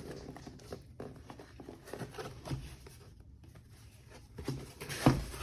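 Soft rustling and light scattered taps of packaging and small items being handled and opened, with a louder knock near the end.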